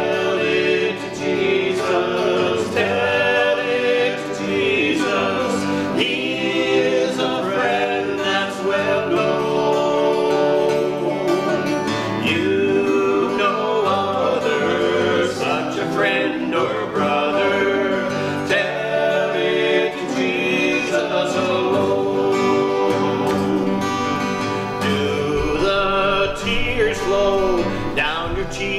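Men singing a hymn together, accompanied by two acoustic guitars.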